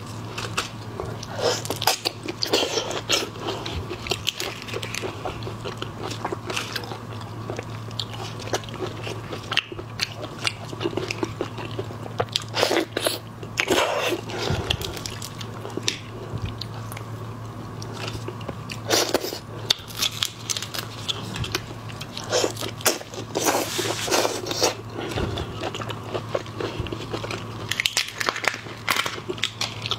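Close-miked crackling and crunching of raw, soy-marinated shrimp shells being pulled apart and peeled by plastic-gloved hands, mixed with chewing, in irregular bursts.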